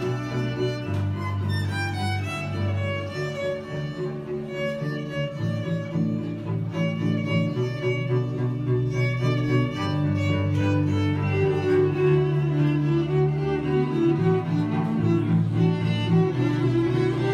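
Electric violin playing a slow bowed melody over low sustained bass notes that change every second or two.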